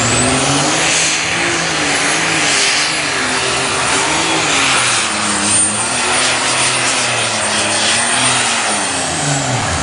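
Unlimited super stock pulling tractor's engine at full power under load pulling the sled, its pitch wavering, with a high whine that climbs in the first second and then holds. Near the end the engine pitch falls away.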